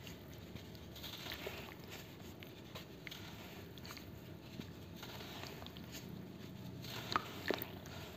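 Gritty charcoal sand crumbled between fingers and trickling onto wet sand, a soft grainy hiss dotted with small crackles. Two sharper snaps come near the end.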